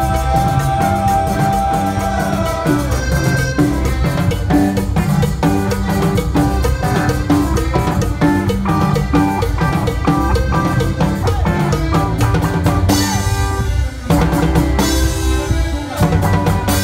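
Live band music with the drum kit up front, playing a steady beat.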